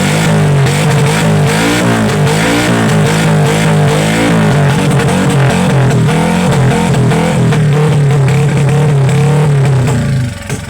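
Truck engine revved through its exhaust. The pitch rises and falls in quick repeated waves for about five seconds, then holds steady before dropping off near the end.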